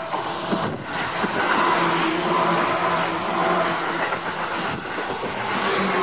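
A Seibu 4000 series electric train passing close by: loud, steady wheel-on-rail noise with a steady hum underneath and a few sharp knocks in the first seconds.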